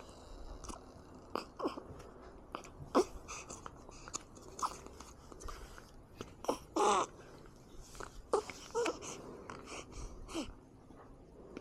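A baby's small mouth noises, wet smacks and sucking clicks, broken by several brief squeaky whimpers, the loudest just past the middle.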